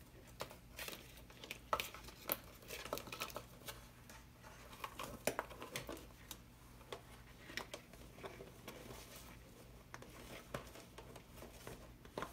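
Irregular crinkles, taps and clicks of a thin plastic water-bottle fuselage and servo wires being handled and pressed into place.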